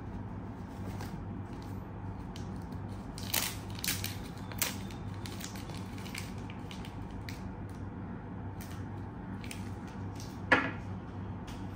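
Handling noise from unpacking: packaging and a zip case rustling and crinkling, with a cluster of crinkles about three to five seconds in. One sharp knock about ten and a half seconds in, the loudest sound, as a small item is set down on the table. A steady low hum runs underneath.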